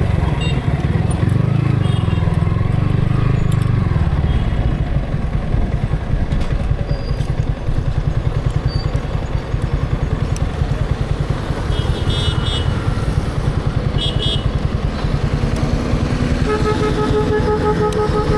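Yamaha R15 V3's single-cylinder engine running under way, with heavy wind buffeting on the action camera's built-in microphone. Two short high horn beeps come about two-thirds of the way in, then a vehicle horn sounds one long held note near the end.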